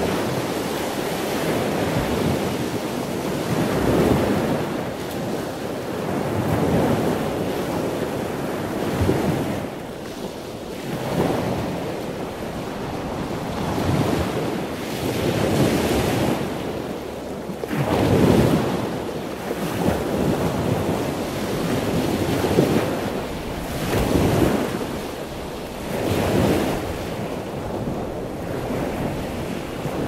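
Waves washing in continuously, the rush of water swelling and easing every two to three seconds.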